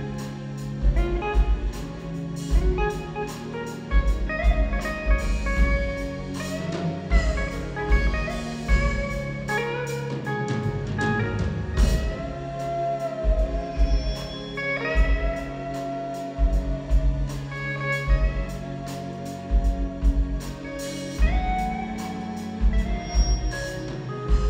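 Live band music: an electric guitar solo with long, bending notes over a steady beat of bass and drums.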